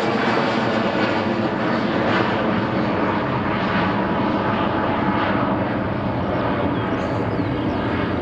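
Airbus A320-200 jet engines at take-off power as the airliner climbs away after departure: a steady, loud jet noise whose high hiss slowly fades as the aircraft moves off.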